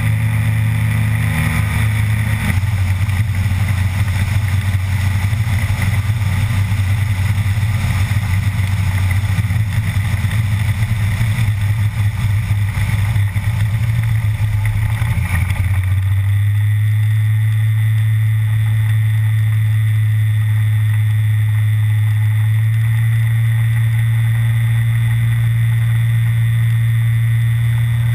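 Aventura amphibian ultralight's pusher engine and propeller running steadily, with a rushing hiss of wind and water as the hull skims across the lake. The engine note shifts about two seconds in, and about sixteen seconds in the hiss drops away, leaving a steady low drone.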